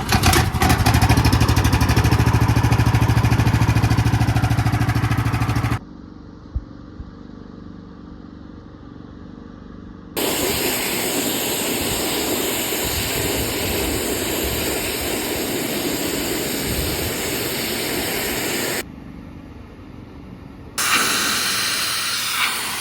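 Gas pressure washer engine running loudly, then a steady hiss of water spraying from the hose onto the roof, broken by two quieter stretches where the shot changes.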